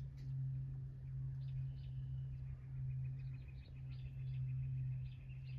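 Scattered short bird chirps and a thin, steady high-pitched trill over a constant low hum.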